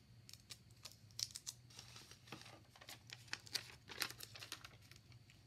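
Faint rustling and crinkling of a paper cut-out being handled and pressed down onto a paper collage, with short, irregular small taps.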